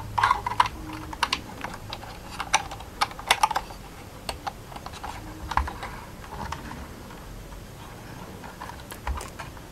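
Light, irregular clicks and taps of hard plastic as Playmobil figures are pushed into the child seats of a plastic toy car. The clicks are densest in the first few seconds and sparser after.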